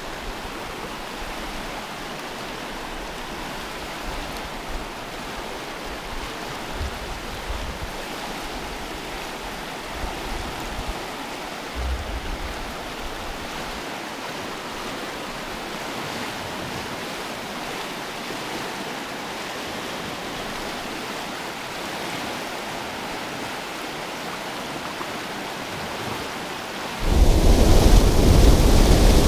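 Fast floodwater rushing and churning below a dam. It is a steady wash of noise with a few low bumps in the first half. About 27 s in it turns suddenly much louder, with the heavy rush of water pouring over the dam spillway.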